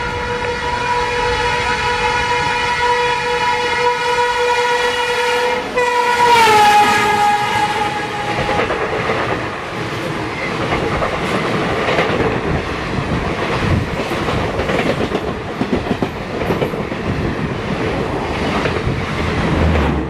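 WAP7 electric locomotive honking one long continuous horn as it approaches on the adjacent track. The horn drops in pitch as the engine passes about six seconds in and stops soon after. Then the express coaches rush past close by, their wheels clattering over the rail joints.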